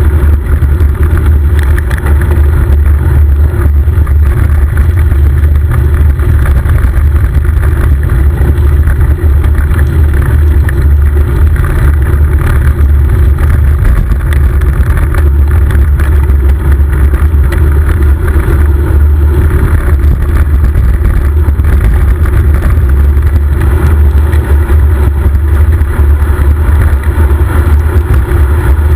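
Wind buffeting the microphone of a camera on a moving bicycle: a loud, steady low rumble, with road and tyre noise beneath it.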